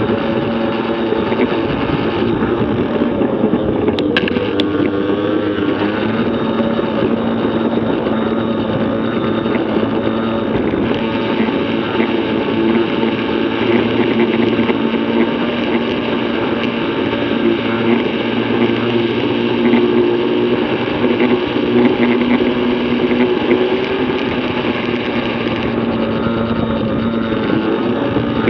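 Yamaha PW50 mini bike's small two-stroke single-cylinder engine running hard at a steady high rev, its pitch drifting a little up and down. Two short clicks about four seconds in.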